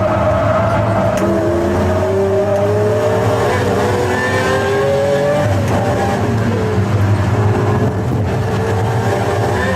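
Pagani Zonda F Clubsport's V12 engine pulling hard under acceleration, its pitch climbing, with an upshift about a second in and another a little past halfway.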